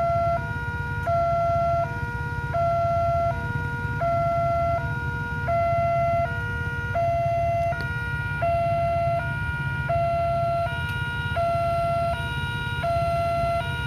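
Railway level-crossing warning alarm sounding a two-tone electronic hi-lo signal, a louder high tone and a softer low tone taking turns about every one and a half seconds, warning that a train is approaching. A steady low rumble lies beneath.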